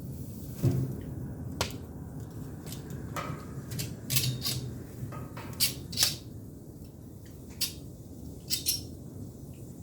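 Chestnut firewood crackling and popping as it burns, with about a dozen irregular sharp pops and snaps over a low steady hum.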